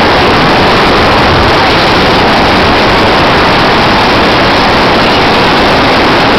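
Loud, steady rushing noise with no tone or rhythm, unchanged throughout.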